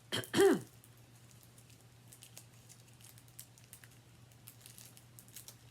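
Faint rustling and small clicks of a chocolate-bar wrapper being handled and opened, over a low steady hum. A short vocal sound comes just at the start.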